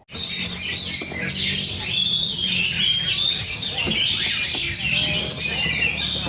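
Many caged songbirds singing at once in a dense, continuous chorus of overlapping chirps and trills, starting abruptly.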